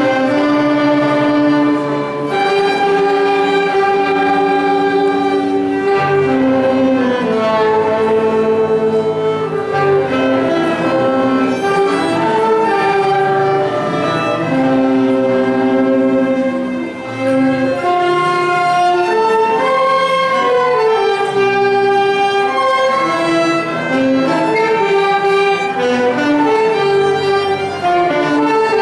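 A small ensemble of flute, clarinet, saxophones, violin, acoustic guitar and accordion playing a melodic piece together, held notes moving step by step with no breaks.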